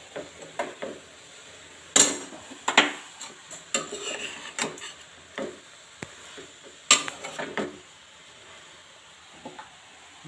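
Slotted metal spatula scraping and knocking against a black kadai while stirring grated carrots roasting in ghee. The scrapes are irregular, with sharper clanks about two seconds in, just before three seconds, and near seven seconds.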